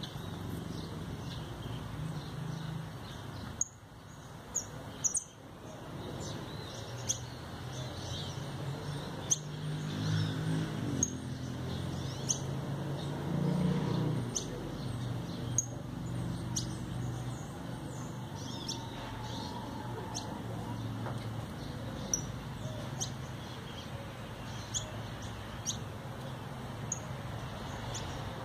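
Caged jilguero (saffron finch) giving short, high chirps every second or so, spaced apart rather than in a run, over a low, steady background rumble.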